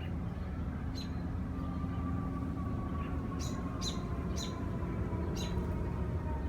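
A small songbird gives five short, high chirps, one about a second in and four close together in the second half, over a steady low outdoor rumble and a faint hum that slowly falls in pitch.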